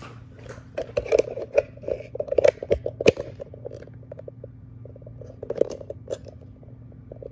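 Handling noise as the recording device is fitted and adjusted on a tripod head: a quick run of plastic clicks, knocks and scrapes, then a second short cluster a little more than halfway through.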